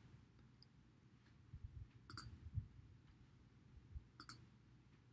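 Near silence with faint computer mouse clicks in two short clusters about two seconds apart, and a few soft low thumps.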